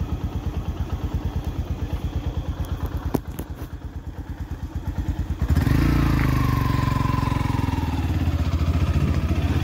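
Engine of a moving road vehicle running at low speed with an even pulsing beat. About five and a half seconds in it grows louder and a faint falling whine is heard.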